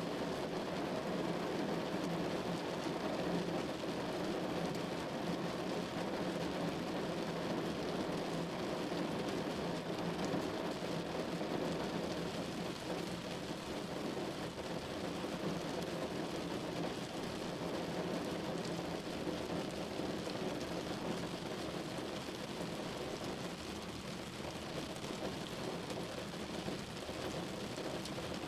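Steady rain falling on a window pane, an even, unbroken wash with no single drops or claps standing out.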